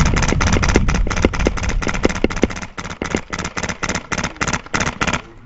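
Airsoft rifle firing rapid semi-automatic shots, about five sharp cracks a second, with a low rumble under the first second.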